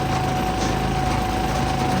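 A small gasoline engine running at a steady speed, with a constant high whine over it.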